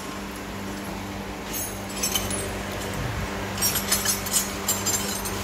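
Repair-shop background: a steady low hum, joined a little past halfway by a scatter of light metallic clinks.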